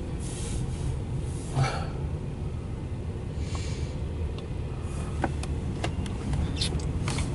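CSX double-stack intermodal freight train rolling past, a steady low rumble of its wheels on the rails heard from inside a vehicle's cabin. Several sharp clicks come in the last couple of seconds.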